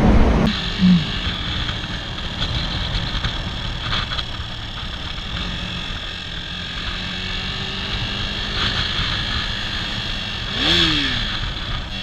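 Motorcycle engine running steadily while riding at moderate speed through town, with wind noise on a helmet-mounted camera. A short swell that rises and then falls in pitch comes near the end.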